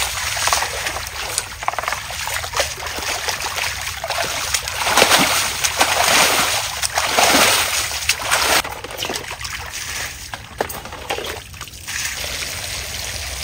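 A stiff plastic broom pushing shallow water across a tiled pool floor, splashing and sloshing in repeated sweeping strokes, then settling into steadier scrubbing of the wet tiles.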